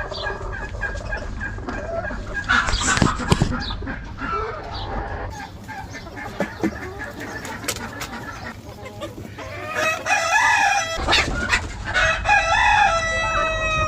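Chickens clucking in a poultry house, with a rooster crowing twice in the second half, the second crow long and falling away at the end.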